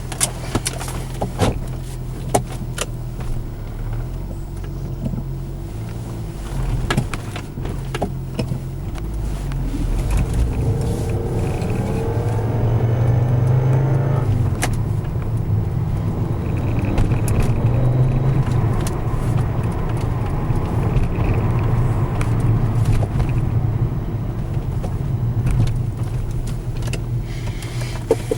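Audi 200 20v's turbocharged five-cylinder engine running, with a few clicks at first; then, about ten seconds in, it grows louder and a whining, grinding noise from the gearbox sweeps up and down in pitch as the car pulls in first gear. The owner takes this 1st-gear grinding noise for the failure of the used ADY/ADZ 016 gearbox just fitted.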